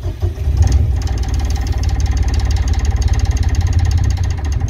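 Yanmar inboard marine diesel cranked on the starter and catching from cold, running with a steady rapid clatter, then cutting out right at the end: a stall that marks the engine as cold.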